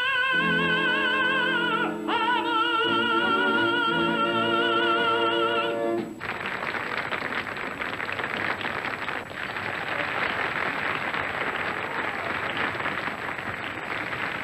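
A tenor holds the song's final high notes with a wide vibrato over a sustaining orchestra, ending about six seconds in. Then an audience applauds.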